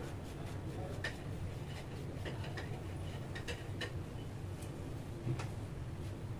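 Light, irregular clicks and taps from a plastic icing scraper and cake turntable as whipped-cream icing is smoothed around the cake, over a steady low hum.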